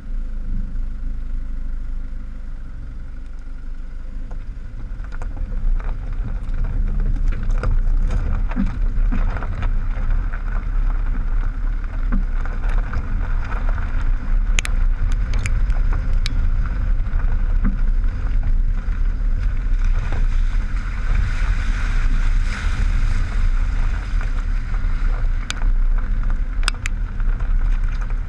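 Land Rover Freelander 2 driving over a gravel track, heard from right beside the front wheel: a steady low rumble of tyre on gravel with wind on the microphone, and sharp clicks of stones flicked against the body. It gets louder about six seconds in.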